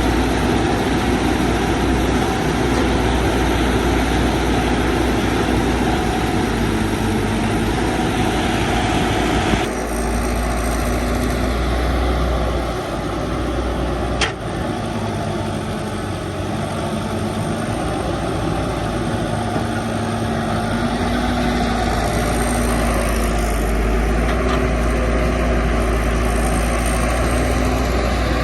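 Excavator diesel engine running steadily, its pitch wavering slightly. The sound changes abruptly about ten seconds in, and a single sharp click comes near the middle.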